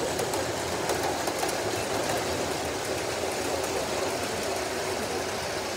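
O gauge model train running past close by on its track, a steady rumble of wheels on the rails.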